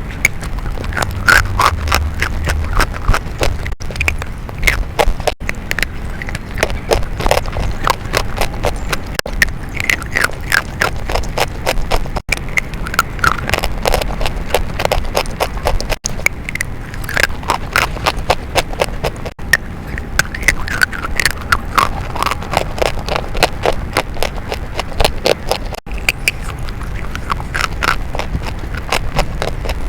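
Chalk crunching and crumbling close to the microphone: a dense, continuous run of sharp crackles.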